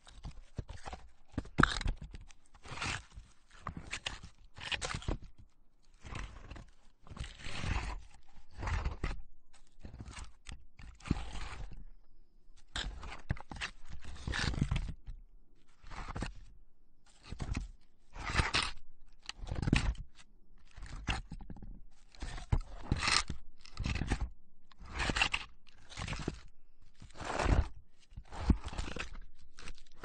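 A wooden log scraping and grinding against a boulder: a long, irregular series of rough scrapes, each under a second or so, some starting with a sharp knock.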